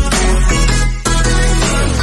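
Electronic music with a heavy bass: a deep kick drum that drops in pitch, then a held bass note under sustained chords, with the bass sliding down near the end.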